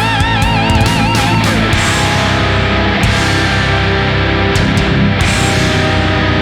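Heavy rock music with distorted electric guitar; a guitar lead note wavers in vibrato and bends down in the first second and a half.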